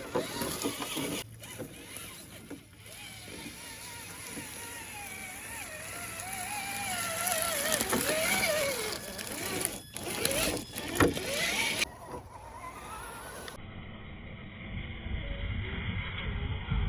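Small electric motor and gear drivetrain of a Traxxas TRX4 RC rock crawler whining, its pitch wavering up and down as the throttle changes. The sound breaks off abruptly a few times.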